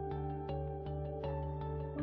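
Background music: evenly spaced struck notes, nearly three a second, ringing over held low tones.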